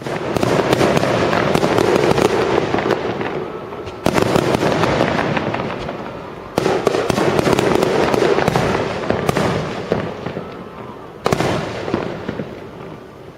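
Aerial fireworks display: loud bursts near the start and again about 4, 6.5 and 11 seconds in, each followed by dense crackling that slowly fades.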